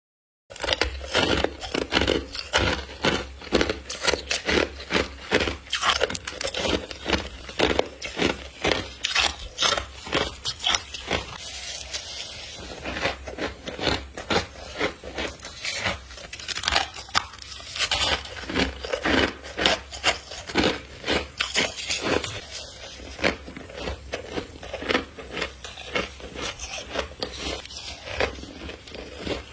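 Close-up crunching and chewing of deep-freezer frost ice crystals: a rapid run of crisp crunches, several a second, easing off briefly about twelve seconds in.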